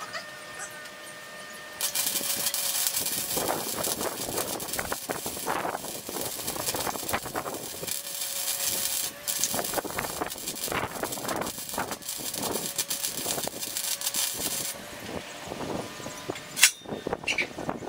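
Wire-feed welder laying a bead on square steel tubing: the arc gives a steady crackling hiss. It strikes about two seconds in and stops about fifteen seconds in. A single sharp knock comes near the end.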